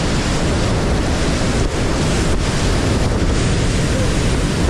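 Whitewater rapids rushing loudly and steadily around a kayak running through them, heard close up from the boat.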